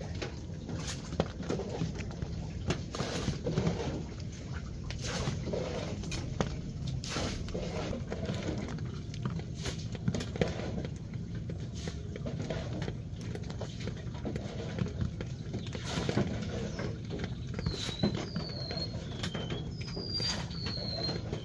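Rain dripping, with scattered sharp taps on wet leaves over a steady low background noise. Near the end a bird gives several short, high, downward-sliding chirps.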